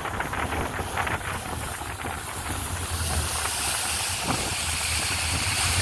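Motorboat's engine running steadily as the boat cruises, under a rushing hiss of wind and water that grows louder about three seconds in.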